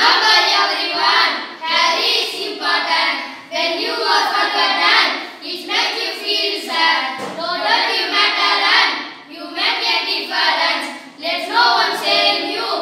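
A group of boys' voices chanting a memorised poem in unison, in a sing-song recitation, phrase by phrase with short breaks between lines.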